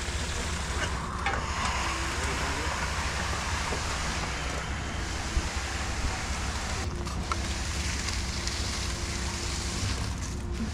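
Concrete pump truck running steadily: a continuous engine rumble and hum with a rushing hiss over it.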